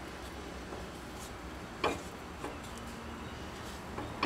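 Wooden spatula knocking and scraping against a nonstick frying pan twice, about two and a half seconds apart, over a low steady hum.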